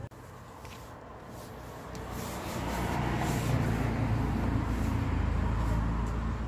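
A motor vehicle running close by, with a low engine rumble and road noise that grow louder about two seconds in and stay loud.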